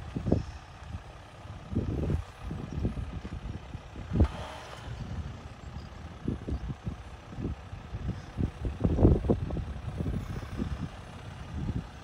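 Jeep Wrangler Unlimited Rubicon crawling slowly over rocks, heard from a distance as an irregular low rumble that swells and fades, with a sharper burst about four seconds in.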